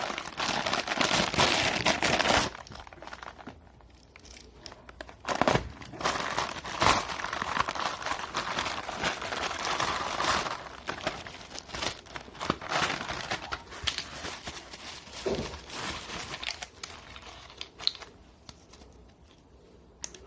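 Plastic packaging crinkling and rustling in irregular bursts as it is handled, loudest in the first couple of seconds and again through the middle, with quieter pauses between.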